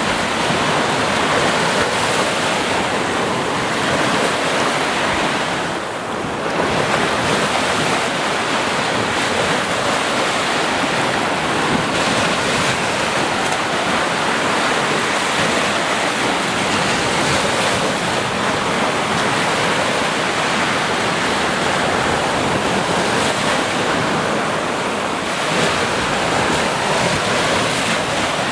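Sea waves breaking and washing onto a beach in a steady rush of surf, easing briefly about six seconds in before the next wave.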